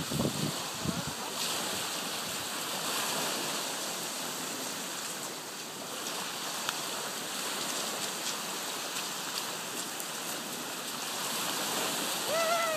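Small waves breaking and washing up on the beach: a steady hiss of surf.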